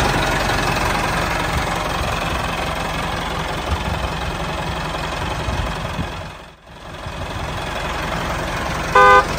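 Tractor engine running steadily, fading briefly about six and a half seconds in and coming back. A short horn beep near the end.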